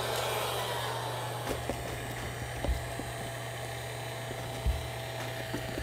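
Electric heat gun blowing hot air, a steady fan hiss over a low hum, heating a PVC boat patch to soften the urethane glue so the bond lets go. Two faint low knocks come about a third and about four-fifths of the way through.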